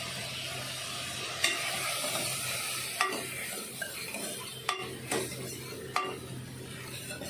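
Chopped onions, tomatoes and green chillies sizzling in oil in a pan while being stirred with a spoon, which knocks against the pan about five times.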